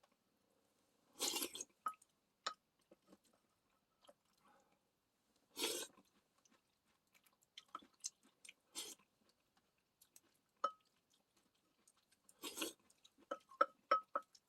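A person eating stew with seaweed, potato and perilla powder, chewing close to the microphone. There are a few louder noisy bursts about every three to four seconds, many small mouth clicks, and a quick run of short clicks near the end.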